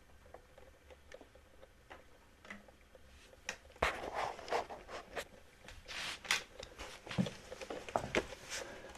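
Close handling noise: a few faint clicks, then from about four seconds in a busy run of clicks, knocks and scraping.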